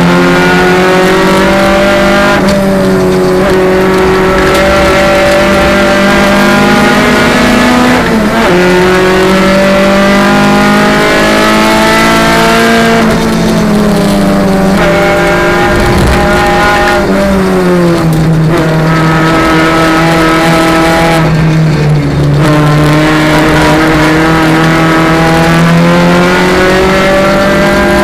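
Renault Clio Sport race car's engine heard from inside the cabin under racing load. The pitch climbs through the revs and falls back several times as it changes gear and brakes for corners.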